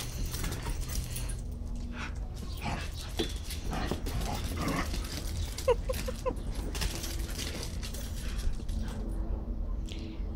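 Podencos play-fighting: paws scuffling and scrabbling on concrete and a dog bed, with a few short yips about six seconds in.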